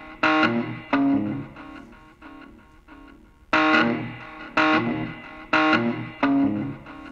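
Background music: guitar chords struck about every 0.7 s and left to ring out, with a lull of about two seconds near the middle.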